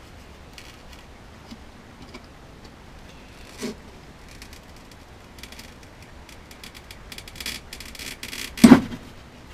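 Scattered small clicks and crackles from a metal-framed laminated-glass screen being worked and pressed against a wooden workbench, with one loud knock near the end.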